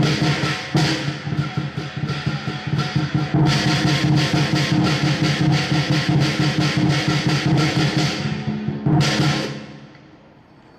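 Lion dance percussion: drum, gong and cymbals beating rapid, clashing strokes over the gong's steady ring. The playing breaks off about eight seconds in, followed by one last crash about a second later.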